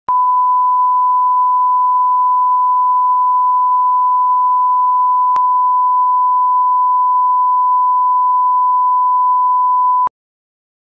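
Steady 1 kHz line-up reference tone of the kind played under colour bars: one unwavering pure tone that cuts off suddenly about ten seconds in.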